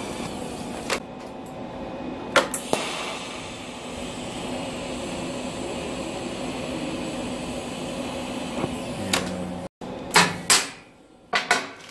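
TIG (argon) welding arc hissing steadily. It stops abruptly about ten seconds in, and a few sharp metal clinks and knocks follow as steel parts are handled.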